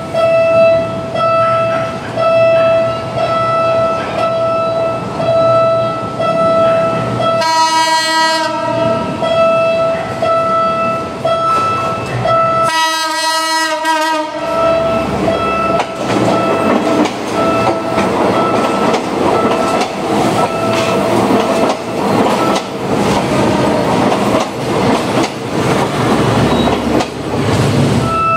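Philippine National Railways train sounding its horn in two long blasts, each about a second and a half, then passing with the rising clatter of its wheels on the rails. A regularly pulsing warning tone repeats underneath.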